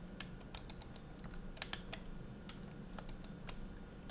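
Computer keyboard and mouse clicks: a dozen or so short, irregular taps, over a faint steady low hum.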